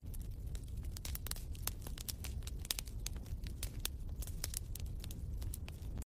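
Wood fire crackling in a fireplace: frequent irregular sharp pops and snaps over a low steady rumble.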